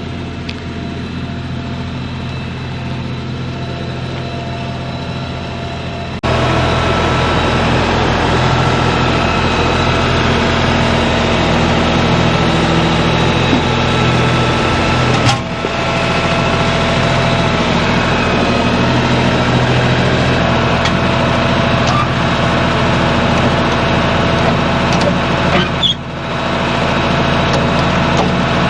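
An engine running steadily, which jumps louder about six seconds in and briefly drops twice later on.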